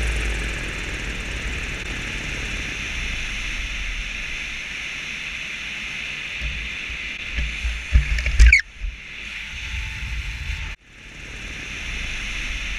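Steady rushing air noise on the camera in flight under a powered paraglider. There are a few low thumps and a quick falling sweep about eight seconds in, then a sudden brief dropout near eleven seconds before the rushing resumes.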